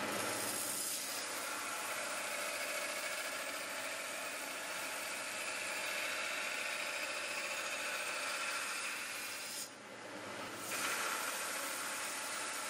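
Belt grinder grinding a hardened and tempered W2 steel knife blade held in a clamping jig, a steady hiss of abrasive belt on steel. It eases off briefly about three-quarters of the way through, then comes back.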